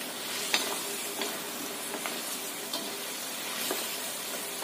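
Fried chicken pieces sizzling in a thickening soy and brown-sugar sauce in a wok, stirred with a wooden spatula that gives a light knock against the pan roughly every second. The sauce is cooking down so the chicken soaks it up.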